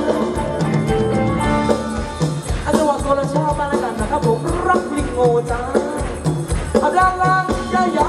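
Live Thai ramwong dance band playing: a steady drum beat under a melody line.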